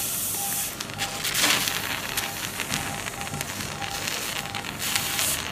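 Operating-theatre sound during open brain surgery: a steady hiss with bursts of crackling and hissing from the instruments at the operative field, loudest about a second and a half in and again near the end, over a short beep repeating at an even pace, like a patient monitor.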